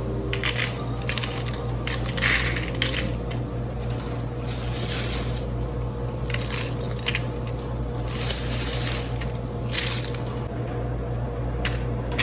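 Repeated short bursts of rustling and crunching as spices and aromatics are put into a clean pan and handled, heard over a steady low hum.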